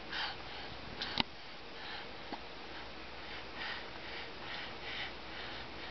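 Soft breathing or sniffing close to the microphone, in a string of short puffs mostly in the second half, with a sharp click about a second in.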